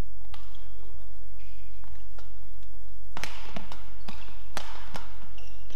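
Badminton rally: rackets striking the shuttlecock in sharp hits, fainter ones about two seconds in and louder ones from about three seconds in, with short squeaks of shoes on the court floor and a steady low hum from the hall.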